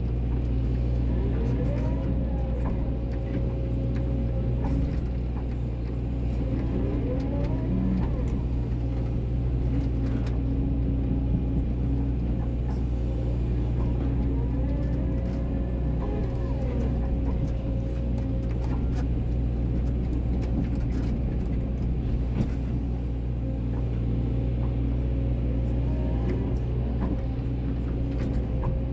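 Volvo EC140DL hydraulic excavator working from the cab: the diesel engine runs steadily under load, with a hydraulic whine that rises in pitch several times as the boom and bucket move. Occasional short clunks come from the bucket digging clay and stones in the trench.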